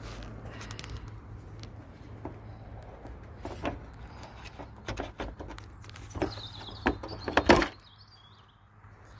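Plastic tailgate switch and number-plate light panel of a Land Rover Discovery 4 being worked loose, its clips and tabs releasing: a run of clicks and knocks, loudest in a quick cluster about seven and a half seconds in.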